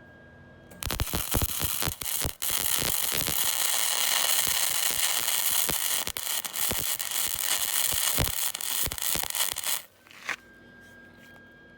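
MIG welder arc crackling and spitting as weld is laid onto a worn lawn-tractor wheel spindle shaft to build it back up. The arc runs for about nine seconds, stops briefly about two seconds in, then cuts off near the end.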